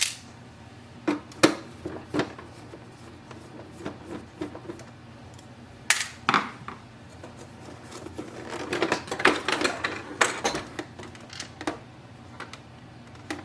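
Scattered sharp clicks and knocks of a screwdriver and small screws against the printer's plastic housing as the screws at the back of the scanner glass are taken out, with a quick run of small clicks around the ninth second.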